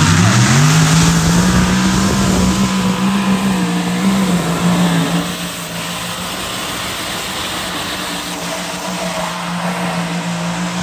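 Multi-engine modified pulling tractor revving up as it launches with the sled, its engine note rising in the first second and then held at steady high revs as it pulls down the track. The sound drops in level about five seconds in.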